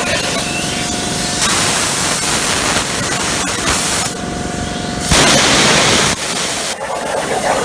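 Plasma torch of a Lincoln Torchmate 4510 CNC plasma table cutting quarter-inch carbon steel plate: a loud, harsh hiss that steps sharply louder and quieter several times as the torch works through the grate's many holes.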